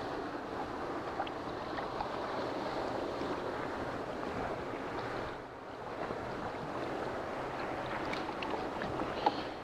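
Steady wash of wind and water noise, with a few faint clicks and a brief dip a little past halfway.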